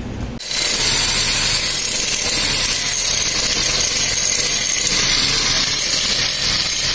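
Handheld angle grinder grinding the steel rear bumper of a truck: a steady high whine over a hissing grinding noise that cuts in abruptly about half a second in.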